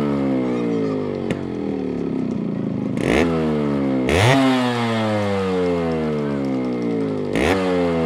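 Yamaha RX two-stroke single-cylinder motorcycle engine revved by hand while parked: three quick throttle blips, each snapping up in pitch and then falling slowly back toward idle.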